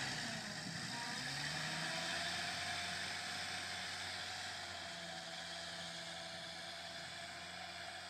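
Jeep Wrangler YJ engine running steadily as the Jeep drives away through snow, slowly growing fainter.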